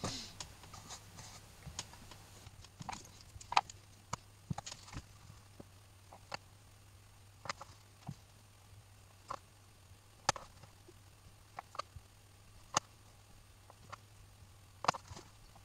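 Light, irregular clicks and taps of small metal accordion reed plates being picked up and set down, and of a glue brush on its pot, during the gluing of valves onto the reeds. A faint steady low hum runs underneath.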